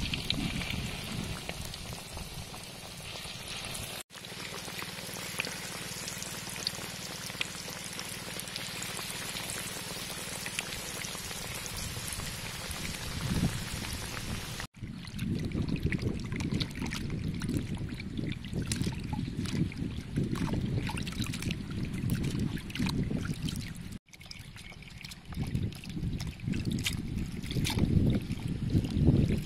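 Battered fish pieces deep-frying in a wok of soybean oil, a steady high sizzle. About halfway through it gives way to water sloshing and splashing as hands wash holy basil leaves in a basin.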